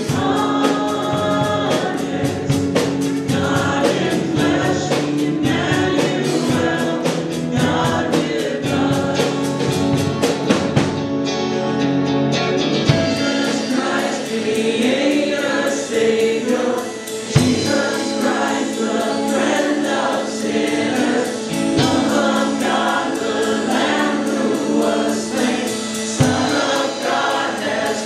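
Live worship band playing and singing a hymn-like praise song: several male and female voices singing together over electric guitar, bass and drums with a steady cymbal beat. The drums drop out for a moment about eleven seconds in, then come back.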